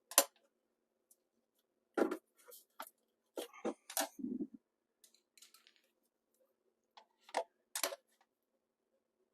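Scattered sharp clicks and knocks, about ten at uneven intervals and bunched in the first half, as the hard parts of a garbage disposal are handled and fitted together.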